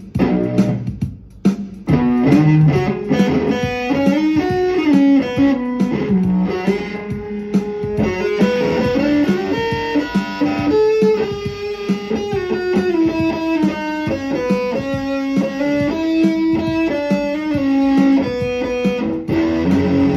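Electric guitar played through an amplifier: a single-note melodic line stepping up and down, a few scattered notes at first, then continuous from about two seconds in.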